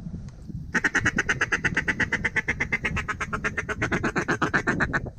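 Duck call blown in a fast, even chatter of short quacking notes, starting under a second in and running about four seconds before stopping abruptly, with wind rumbling underneath.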